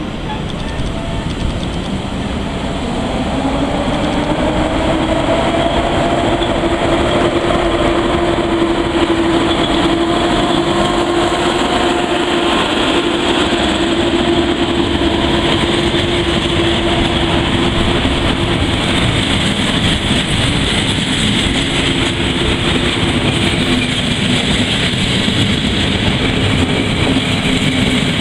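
Passenger train hauled by an EP07 electric locomotive pulling away and rolling past at low speed: a steady rumble of wheels on rails, with a humming tone that rises in pitch over the first few seconds and then holds steady.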